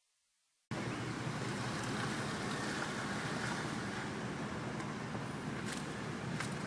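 Steady storm wind buffeting the microphone, cutting in suddenly under a second in after silence, with a few faint clicks near the end.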